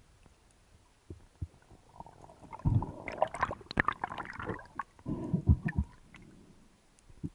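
Muffled underwater gurgling and bubbling with sharp crackles. It comes in a dense burst from about two seconds in, then a shorter bubbly rumble around five seconds, with only faint knocks before.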